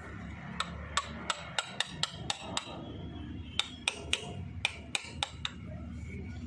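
Hammer tapping on a steel drift to drive a new crankshaft oil seal into its housing on a Mahindra 265 DI tractor engine: a run of sharp metallic taps, a few a second, with a pause of about a second around the middle.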